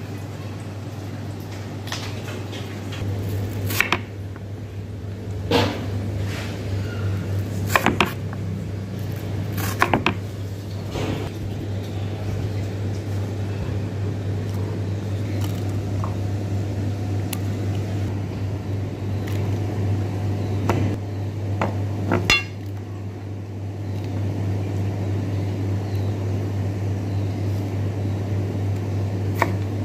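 Kitchen knife cutting watermelon on a plastic cutting board: several sharp knocks of the blade hitting the board, scattered irregularly, over a steady low hum of kitchen machinery.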